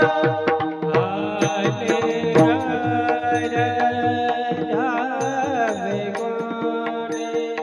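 Varkari kirtan music: voices singing a bending melody over steady held tones, with pakhawaj drum strokes keeping the beat.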